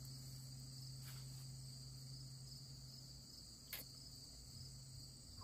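Faint, steady high-pitched chorus of insects in late-summer woodland, with one sharp click a little before the end.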